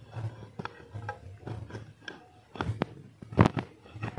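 Steel crowbar jabbing and scraping into dry, crumbly soil around a tree root: a string of short knocks and crunches, the sharpest a little past halfway.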